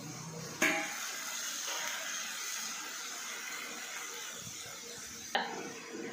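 Raw chicken pieces sizzling in hot oil in a kadai: a clatter about half a second in, then a steady hiss, with another knock near the end.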